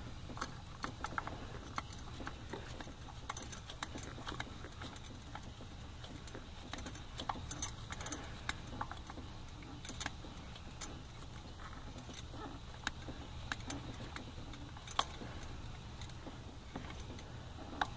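Faint, irregular light metallic clicks and taps from a socket on a long extension being worked onto and turned on a coil pack mounting bolt.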